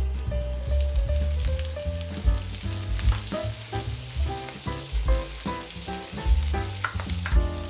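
Butter sizzling in a frying pan as whole garlic cloves and whelks fry, a steady crackling hiss. Background music with repeated notes and a bass beat plays along with it.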